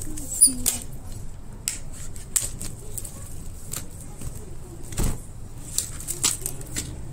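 A cardboard box wrapped in plastic film and packing tape being handled and turned: scattered taps, clicks and crinkles, with a sharper knock about five seconds in.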